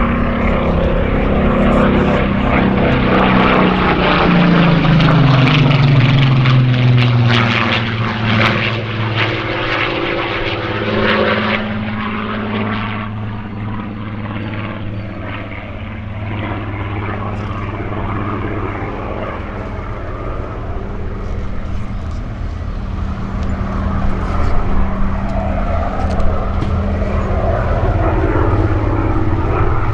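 Supermarine Spitfire Mk XIV's Rolls-Royce Griffon V12 engine in flight. Its note falls in pitch over the first several seconds, then settles into a steady drone that grows fainter in the middle and louder again near the end.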